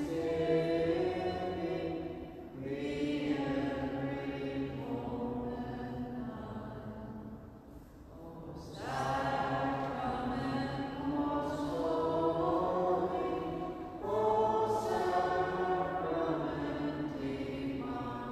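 Voices singing a slow, chant-like church hymn: long held notes in phrases of a few seconds, with a brief pause about eight seconds in.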